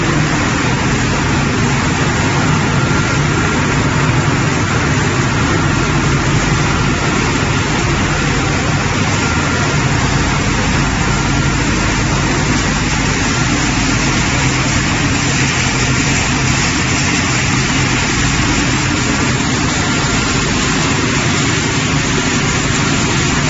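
Wood pellet production line machinery running: a loud, steady industrial hum and rushing noise from the plant's motors and conveyors, with a faint high steady whine.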